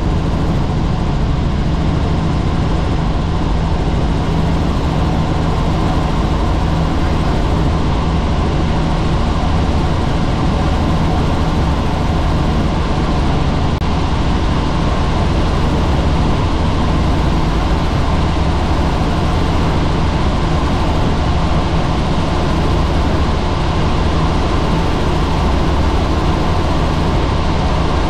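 Helicopter in flight: steady, loud drone of the turbine engine and rotors, with a low hum and its overtones that does not change.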